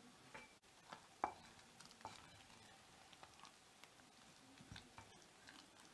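Faint, scattered soft clicks and scrapes of a wooden spoon stirring thick barley-and-turnip porridge with butter in a pot.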